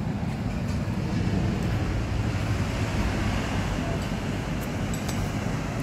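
Steady rush of heavy storm surf breaking on the beach ahead of an approaching hurricane, mixed with wind buffeting the microphone.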